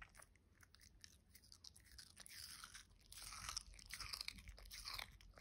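Shih Tzu biting and chewing a thin slice of watermelon: faint, wet crunching that becomes busier about two seconds in.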